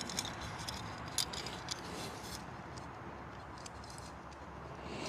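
Faint light metallic clicks and scratches of a small carburetor jet-cleaning wire being handled and worked against a carburetor, scattered through the first couple of seconds with a few more near the end.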